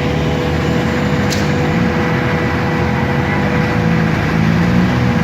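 A large vehicle's engine running steadily, with a constant hum over it and a short click about a second in.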